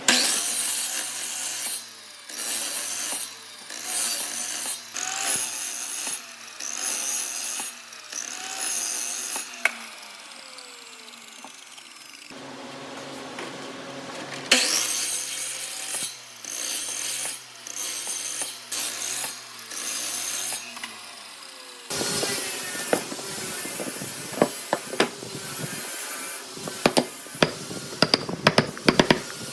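A tool working wood in repeated rasping strokes, about one a second, in two runs with a short pause between them. After that come a string of sharp taps and clicks.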